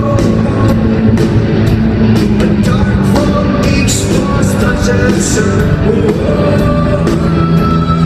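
Rock music playing: a full band with guitar and a steady drum beat, and singing over it.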